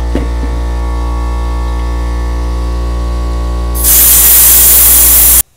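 An air compressor runs with a steady hum; about four seconds in, a loud rush of air starts as air is blown into a motorcycle tire and escapes past a bead that will not seat on the rim. The rush cuts off suddenly near the end.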